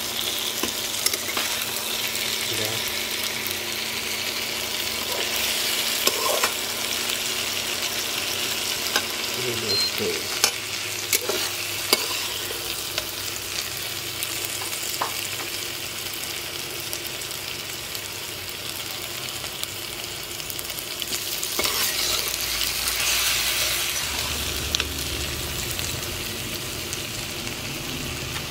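Brinjal and potato pieces sizzling in oil in a nonstick kadai while being stir-fried, with the metal spatula scraping and tapping against the pan several times. The sizzle swells twice, about a fifth of the way in and again about three quarters of the way through.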